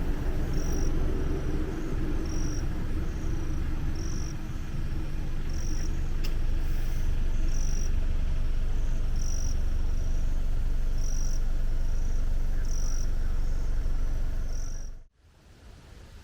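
Outdoor ambience with a high-pitched insect chirp repeating evenly, about once a second, over a steady low rumble. It cuts off suddenly about a second before the end.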